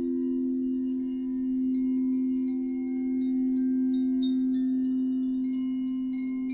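Singing bowls sounding a steady drone of two low tones, with small chimes struck irregularly and ringing over the top, the chimes growing busier near the end.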